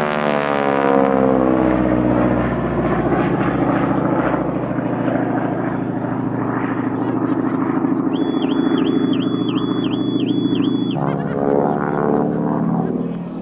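Noorduyn AT-16 Harvard IIB's Pratt & Whitney R-1340 Wasp radial engine and propeller in flight during an aerobatic display. It is loud throughout: the pitch falls in the first couple of seconds as the aircraft passes, holds steady, then shifts again about eleven seconds in as it manoeuvres.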